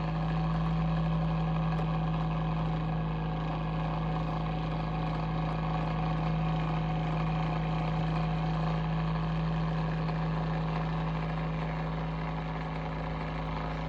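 Bionaire ceramic tower heater running with a steady low drone, one strong low tone with many overtones above it, unchanging throughout. It is an abnormal noise that the owner cannot explain.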